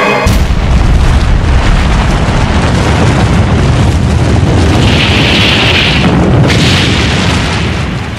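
Atomic bomb explosion, as dramatized for film: a sudden loud blast about a quarter second in, then a long, deep rumble of the spreading blast, with hissing swells around five to seven seconds in.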